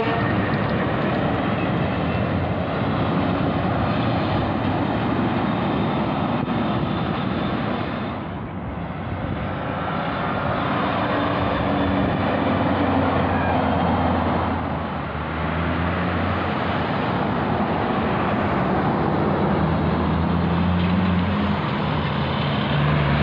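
Heavy diesel trucks passing on a road one after another: a steady engine drone with tyre noise, dipping briefly twice between passes.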